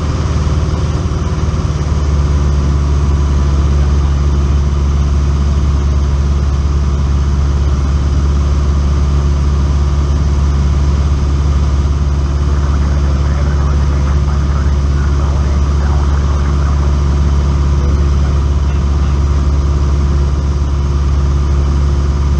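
Single-engine propeller airplane's engine and propeller running in cruise flight, a steady low drone heard from inside the cockpit. It gets slightly louder about two seconds in.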